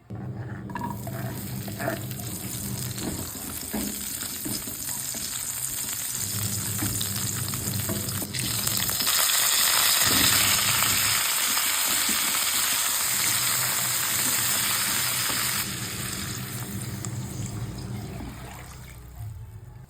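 Food frying in hot oil in a pan as it is stirred. The sizzle swells about eight seconds in, then eases off near the end.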